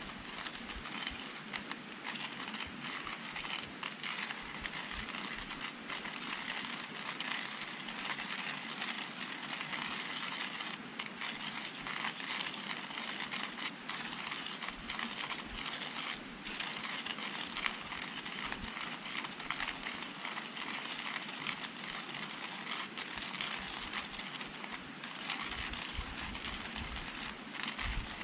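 Firewood burning in a Picogrill-style folding fire pit, crackling steadily with many small sharp pops.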